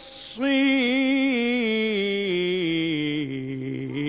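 Egyptian Quran reciter chanting in the ornate mujawwad style. A quick intake of breath, then one long melismatic note with rapid ornaments that steps down in pitch.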